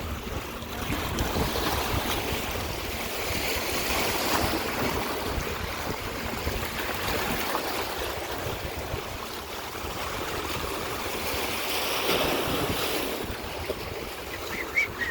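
Lake Michigan waves washing onto the beach, swelling up twice, with wind buffeting the microphone.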